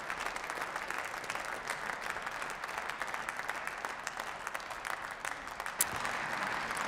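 Steady applause from many people clapping in a large parliamentary chamber, with one sharp click near the end.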